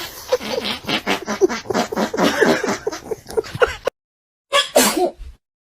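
A cat sneezing: a quick run of short, sharp sneezes for about four seconds, then a break and one more sneeze near the end.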